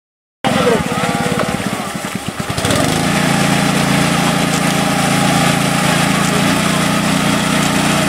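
Small engine of a mini rice harvester running. It runs with an uneven, pulsing beat at first, then about three seconds in it picks up to a steady drone.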